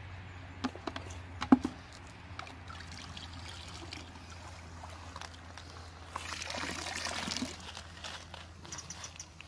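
Water trickling and splashing as gravel is tipped from a bucket into a gold pan in shallow river water, with a sharp knock about a second and a half in. A louder splash of water comes a little after the middle.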